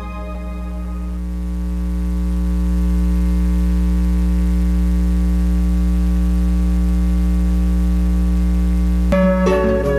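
A low, steady electronic drone with a few sustained overtones, swelling up over the first few seconds and then holding. Short musical notes come in near the end.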